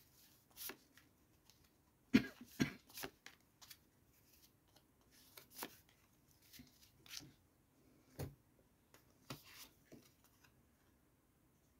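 A deck of tarot cards being shuffled by hand and cards laid down on a table: a string of soft card slaps and flicks, the loudest cluster about two seconds in.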